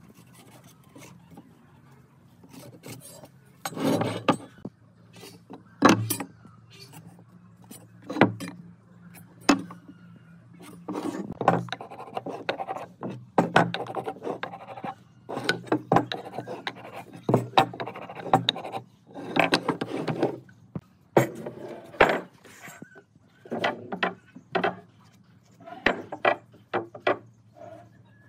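Hand woodworking on pine boards: irregular sharp knocks of a hammer driving a chisel, scraping of the chisel in the wood, and boards knocking as they are handled on a wooden table. A low steady hum runs underneath.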